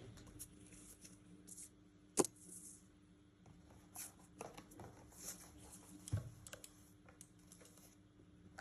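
Packaging being handled during a keyboard unboxing: scattered clicks and knocks with bursts of crinkly rustling, a sharp knock about two seconds in the loudest, over a faint steady hum.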